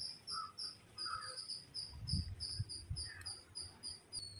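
Cricket chirping: short high-pitched pulses at an even pace, about four a second, merging into a continuous trill near the end. A few soft low thumps sound about two seconds in.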